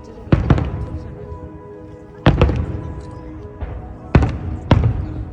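Aerial fireworks shells bursting overhead: two sharp bangs just after the start, two more a little over two seconds in, and two near the end, each echoing briefly. Music accompanying the display plays underneath.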